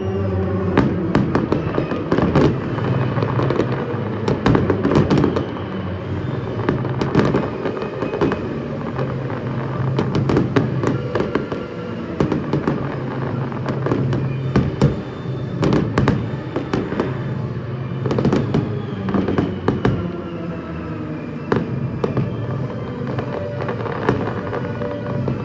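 Fireworks display: a dense run of aerial shell bursts and crackles, many close together, over music with a steady bass line.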